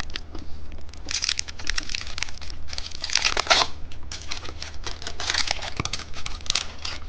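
Candy packaging crinkling and rustling as it is handled and torn open, in irregular bursts of crackle.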